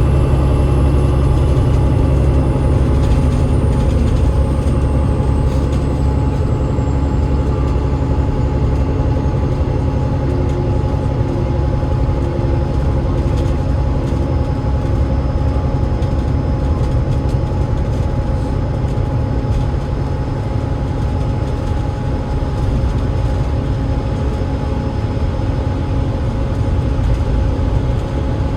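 Enviro500 MMC double-decker bus running with its Cummins ISL8.9 diesel engine and ZF EcoLife automatic gearbox: a heavy, steady low drone with a few constant humming tones. A faint high whine falls slowly in pitch over the first several seconds.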